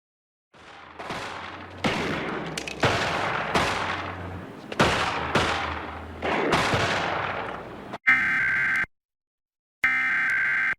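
About seven sharp bangs, each trailing off over a second or so, like gunfire in programme audio. Then two bursts of the Emergency Alert System SAME header: digital data tones about a second long, a second apart, which open an alert.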